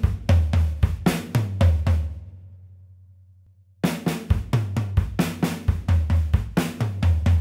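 Drum kit playing a linear sixteenth-note fill: right hand, left hand, kick drum groups moved around snare, rack tom and floor tom, then single strokes on snare, tom and floor tom. The playing stops about two seconds in and the drums ring away, then starts again just before the four-second mark.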